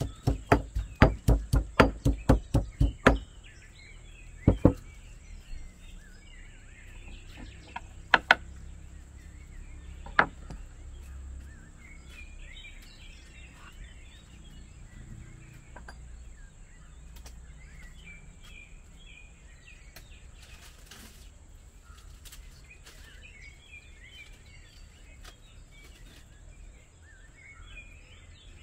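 Stone pestle pounding in a stone mortar, rapid knocks about four a second for the first three seconds, then a few single knocks spaced seconds apart. After that only faint bird chirps over a quiet background.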